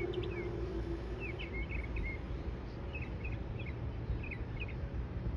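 Whelen outdoor tornado warning siren winding down at the end of its test, its tone falling in pitch and fading out about a second in. After that come scattered bird chirps over a low outdoor rumble.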